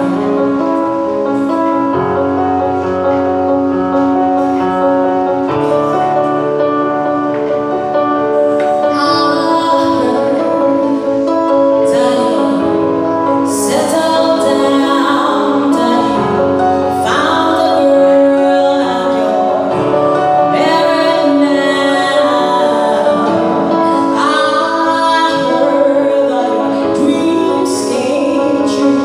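A woman singing a slow ballad into a microphone over electronic keyboard chords, heard live through a PA. The keyboard plays held chords alone at first, and the voice comes in about nine seconds in.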